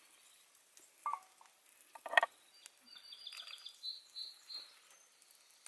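Quiet outdoor campsite ambience: a small bird sings a short run of repeated high notes in the background, with a brief louder sound about two seconds in.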